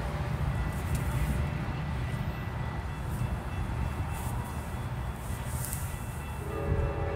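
A steady low rumble, with a distant train horn beginning to sound as a chord of several steady tones near the end.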